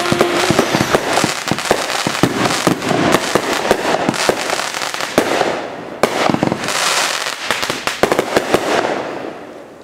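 Fireworks going off: a dense, rapid run of crackling pops and bangs, dying away near the end.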